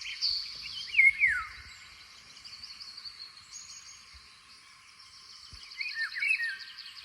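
Recording of a Eurasian golden oriole singing, played through a phone-like handset. It has fluty whistled phrases, one about a second in that falls in pitch and more near the end, over a steady high chirping background, and it cuts off at the end.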